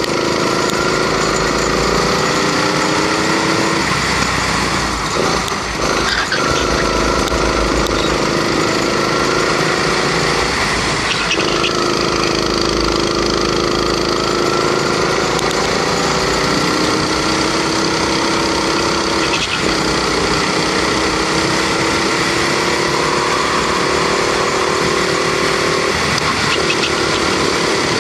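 Onboard sound of a rental go-kart's Honda 270 cc single-cylinder four-stroke engine under racing load. Its pitch climbs steadily along the straights and drops back several times as the kart slows for corners.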